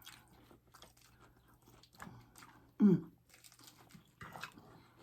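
Close-up chewing and biting of fried tostadas, with soft scattered crunches. About three seconds in there is a short, loud vocal sound, like a hum.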